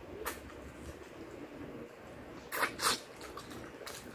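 Chewing crispy fried chicken close to the microphone: soft wet chewing with a few sharp crunches, the loudest two close together about two and a half seconds in.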